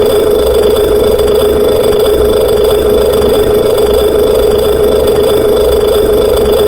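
Loud, steady electronic drone from an effects-processed audio render: one unchanging buzzing tone with a low hum pulsing beneath it.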